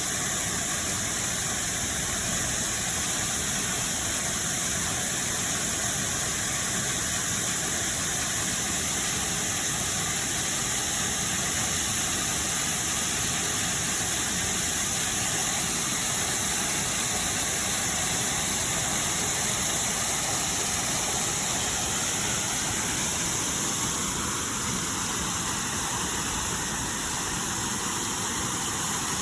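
Waterfall pouring down, a steady, even rush of falling water close by.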